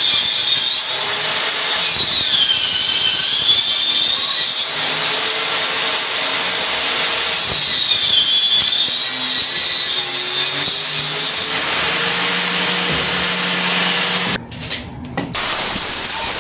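Electric power tool running and working wood, its motor whine dipping in pitch and recovering a few times as it takes load. The sound drops out briefly twice near the end.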